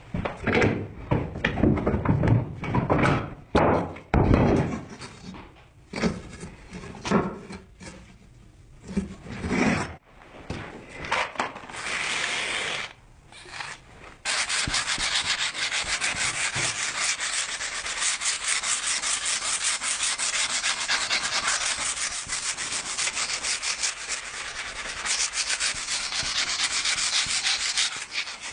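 Sanding on the knife being made: about ten seconds of irregular, uneven rubbing strokes with knocks, then, from about fourteen seconds in, steady fast sanding with rapid, even strokes.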